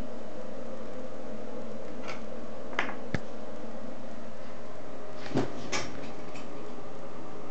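BGA rework station running with a steady hum while its bottom heater warms the board, with a few light clicks and knocks about three and five and a half seconds in.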